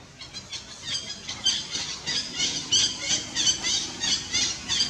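Young long-tailed macaque squealing in distress: a rapid run of short, high-pitched cries, about four a second, growing louder over the first second.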